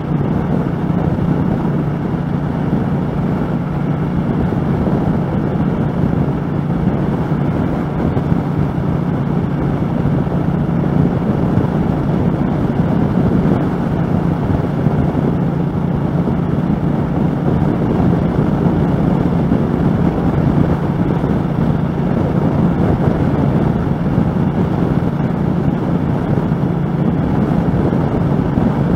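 2013 Triumph America cruiser's 865cc parallel-twin engine running at a steady highway cruise, mixed with wind and road noise, picked up by a helmet-mounted microphone. The engine note and rush of noise stay even, with no gear changes or throttle changes.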